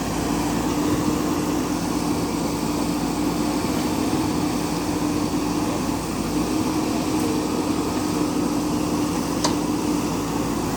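JCB backhoe loader's diesel engine running steadily at an even pitch, with one short click about nine and a half seconds in.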